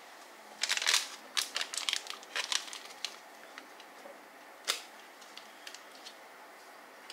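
Foil powder sachet crinkling and being torn open: a quick run of short crackling rips in the first three seconds, then one more sharp crinkle near five seconds.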